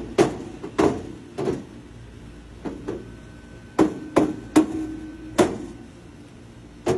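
About ten hammer blows at an uneven pace, struck on an air conditioner unit during repair, some leaving a brief ring.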